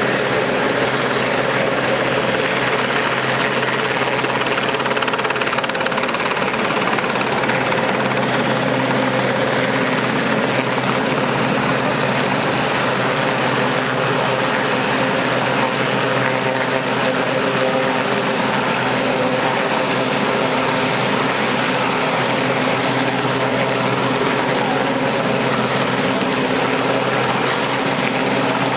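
Westland Sea King search-and-rescue helicopter flying low over open water, its rotors and turbines making a steady, continuous drone with a few constant humming tones.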